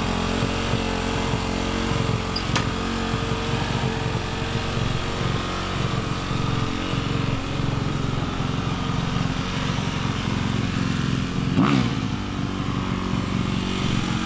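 Motocross dirt bike engine running steadily at idle, with a short rev about twelve seconds in.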